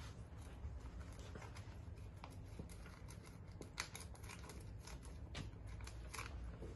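Faint crinkling of a plastic pouch and the snips of scissors as its top is cut open, a string of small irregular clicks over a low steady hum.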